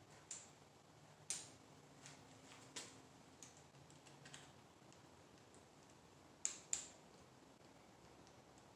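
Faint, scattered clicks and taps of small parts and tools being handled during bicycle assembly, about eight in all, with two sharp clicks close together about two-thirds of the way through.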